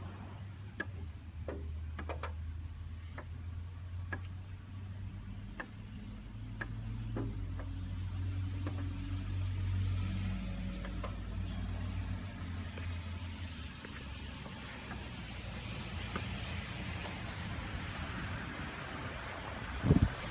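Mercedes-AMG E43's 3.0-litre V6 biturbo engine idling with a steady low hum, with scattered faint light ticks.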